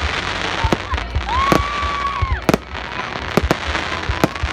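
Fireworks display: sharp bangs of shells bursting, about six of them at uneven gaps, over a constant noisy background. A held high tone, about a second long, sounds near the middle.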